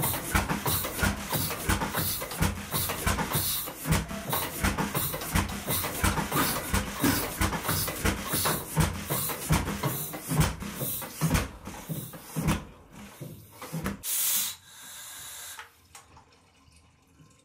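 Old Kromhout hot-bulb marine engine running with a slow, regular thumping beat, then stopping about fourteen seconds in, followed by a short burst of hissing.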